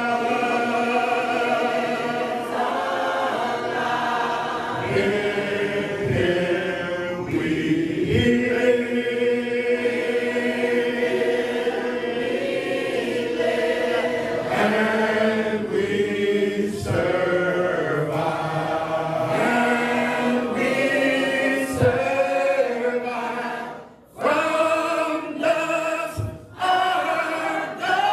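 Congregation singing a hymn unaccompanied, led by a man's voice on a microphone, in long held notes. There are two brief breaks between lines near the end.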